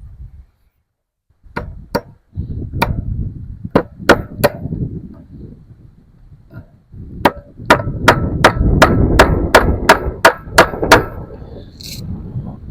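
Hammer driving staples to fasten wire fencing to a gate: a few separate sharp metal strikes, then after a pause a quick steady run of about eleven blows, two or three a second, with the wire fencing rattling in between.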